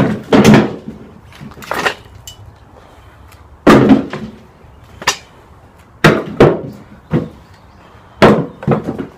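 Chunks of freshly cut firewood being lifted off a saw bench and tossed down, about ten heavy wooden knocks at uneven intervals.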